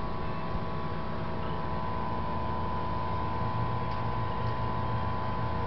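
Steady mechanical hum with several steady tones, like a motor or fan running, unchanging throughout.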